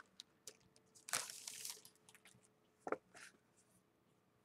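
Clear plastic cellophane sleeve crinkling as it is opened and a paper bag topper is slid out: a short rustle about a second in, then a brief crackle near the end.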